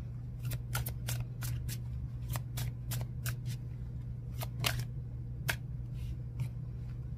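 Oracle cards being shuffled by hand: a run of sharp, irregular card snaps, about two or three a second.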